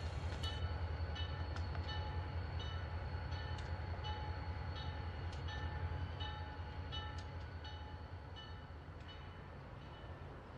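Diesel locomotive rumbling low as it shoves a cut of covered hoppers, with its bell ringing steadily about twice a second. The engine sound fades over the last few seconds.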